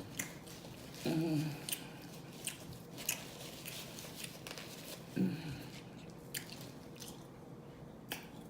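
Close-miked chewing and biting of pizza: wet mouth noises with scattered sharp clicks. Two short hums are heard, about a second in and around five seconds.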